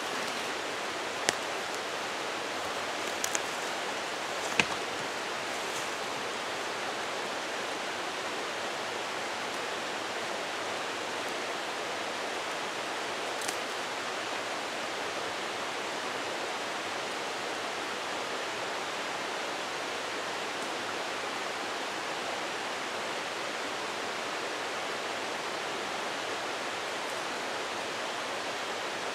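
Steady rush of a mountain creek running high after a day of rain. A few sharp clicks in the first few seconds and one later on.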